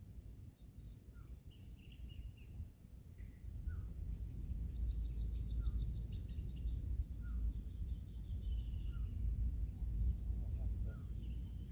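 Wind rumbling on the microphone, growing stronger about four seconds in. Birds call throughout, with a rapid, high trill of about ten notes a second lasting some three seconds in the middle.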